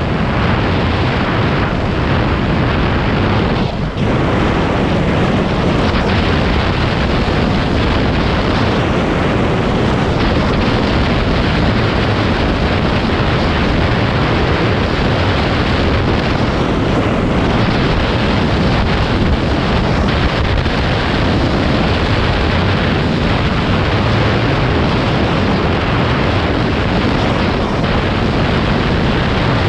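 Steady wind rush buffeting the microphone of a skier's camera at speed, mixed with skis running over hard-packed snow, with a brief dip about four seconds in.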